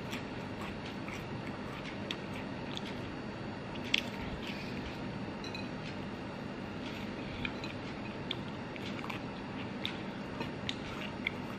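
Mouth sounds of a person biting and chewing kue ape, a green pandan pancake: scattered small wet clicks and smacks over a steady background hiss, with one sharper click about four seconds in.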